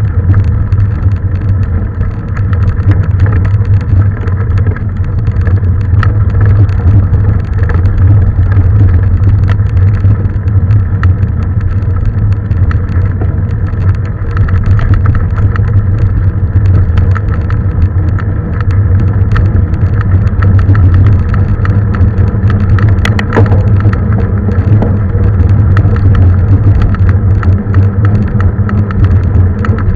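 Mountain bike being ridden on a trail: a loud, steady low rumble with frequent small clicks and rattles from the bike and the ground.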